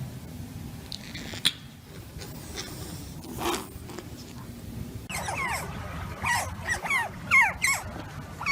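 A dog whining in many short, high, falling whimpers, several a second, starting about five seconds in over a steady low rumble.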